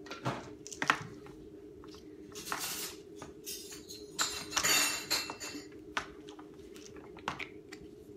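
Handling noises from a plastic water bottle: sharp clicks and knocks, the loudest just under a second in, and two longer crinkling rustles of the thin plastic, over a steady low hum.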